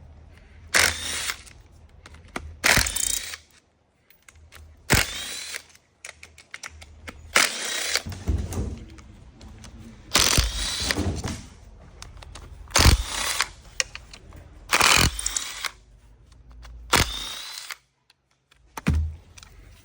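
A power tool running in repeated short bursts, about nine in all, roughly every two seconds, with a low hum in the gaps.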